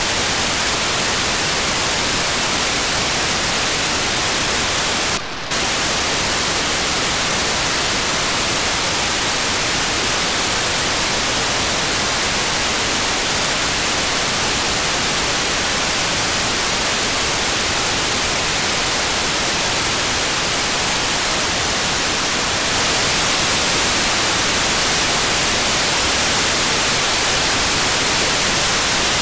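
Steady static hiss of FM-demodulated audio from an RTL-SDR receiver tuned to 435.7 MHz, listening for the D-Star-ONE-Sparrow CubeSat's 4800-baud GMSK telemetry. The hiss dips briefly about five seconds in and grows slightly louder and brighter about 23 seconds in.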